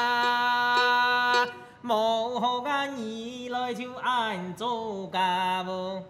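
A man singing a Hakka mountain song (shan'ge) in Hakka, in sung phrases with long held notes and short breaks between them; the singing stops near the end.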